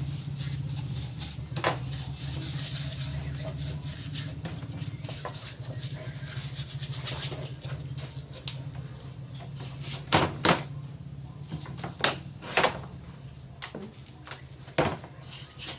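Metal pump parts knocking and clicking as they are handled, a few separate sharp knocks, two close together about ten seconds in, over a steady low hum.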